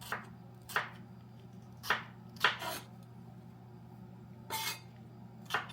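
Kitchen knife chopping bell pepper on a cutting board: about seven separate cuts at an uneven pace, a second or so apart, over a low steady hum.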